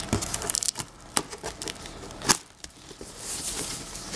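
Cardboard shipping box being handled and opened: irregular crackling of cardboard and plastic wrap with sharp snaps, the loudest about a second and two seconds in.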